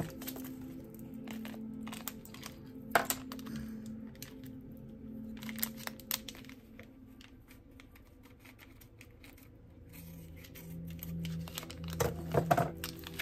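Soft spa music playing from an Alexa smart speaker, with slow sustained notes. Over it, packaging crinkles and clicks as it is handled, with a sharp click about three seconds in and a cluster of clicks near the end.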